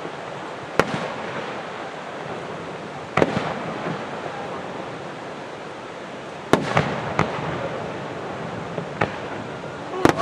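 Aerial firework shells bursting in a display: sharp bangs one to three seconds apart, with a quick double bang near the end, over a steady background hiss.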